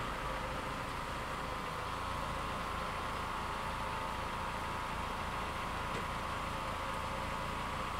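Railway level crossing warning signal sounding steadily while the barrier arms lower, over the low rumble of a car's engine idling at the crossing.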